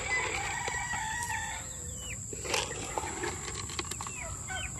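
Rooster crowing, one long held call over the first two seconds, followed by short falling clucks from the chickens, coming quickly one after another near the end.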